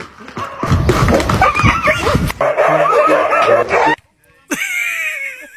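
A dog vocalising, with wavering, high-pitched whines and yips. The sound cuts off abruptly about four seconds in, and a falling, wavering whine starts soon after.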